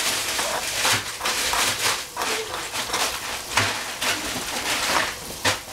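Food sizzling in hot oil in a pan, with irregular stirring strokes.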